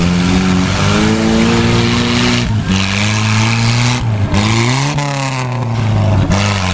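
Engine running hard and being revved, its pitch climbing, holding, then dropping and climbing again several times, with a sharp dip about two and a half seconds in.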